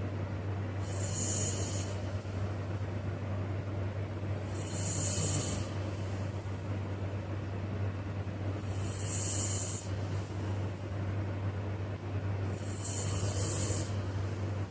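A sleeping person's snoring breaths: four hissing breaths, about one every four seconds, over a steady low hum.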